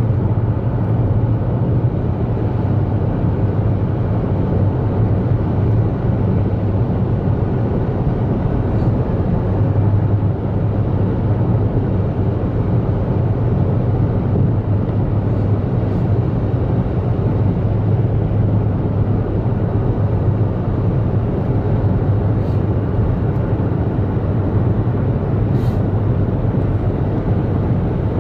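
Steady road and engine noise inside a car's cabin at highway speed, a continuous drone with a low hum underneath.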